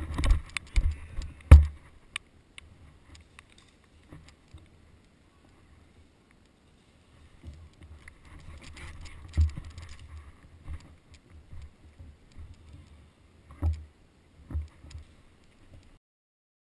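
Footfalls, brush rustling and gear rattling of a player moving fast through forest undergrowth. A quick run of sharp knocks and heavy thumps comes in the first two seconds, then a quieter stretch, then steady rustling with a few heavier thumps later on.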